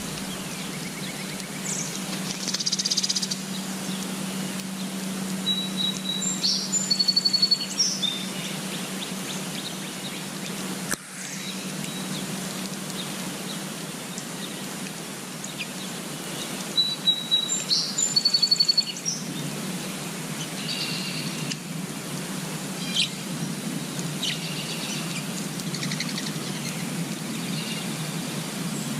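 A small songbird singing high phrases of clear notes ending in a fast trill, given twice, with scattered chirps over steady outdoor background noise and a low hum.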